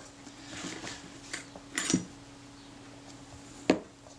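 Metal lens parts being handled on a workbench: a soft rustle of paper towel, a few light clicks, then a sharp knock about three-quarters of the way through as a lens barrel is set down.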